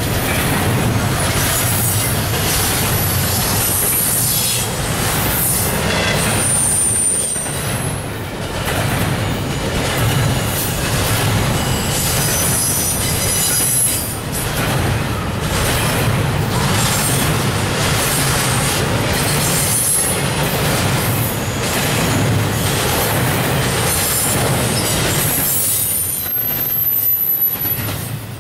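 Double-stack intermodal well cars rolling past close by: a steady rumble and rhythmic clatter of steel wheels over the rails, with high metallic wheel squeals coming and going.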